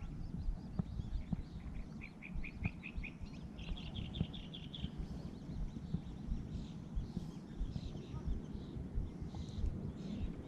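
A small songbird singing two quick trills, a run of rapid chirps about two seconds in followed by a higher run about four seconds in. Beneath it runs a steady low rumble with small irregular knocks.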